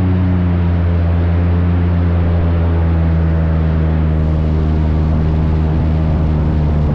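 Airboat's engine and big air propeller running loud and steady while under way, a low even drone with a wash of air and water noise.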